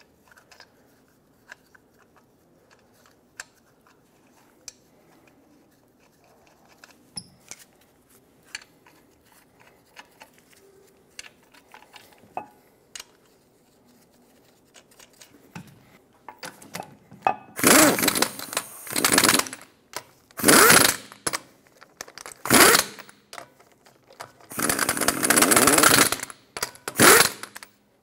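Faint metal clicks as lug nuts are spun onto the wheel studs by hand. Then, a little past halfway, an impact wrench runs the lug nuts down in about five short bursts, bottoming them out against the wheel.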